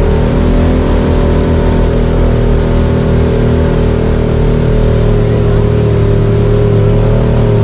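Honda Talon X4 side-by-side's parallel-twin engine running at a steady, even pitch while driving a dirt trail, heard from on board, with a steady rushing hiss over it.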